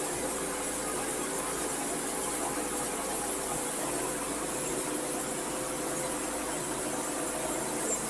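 Big bandsaw mill sawing through a large maple log: a steady running sound with several held tones and a strong high hiss from the band blade in the cut.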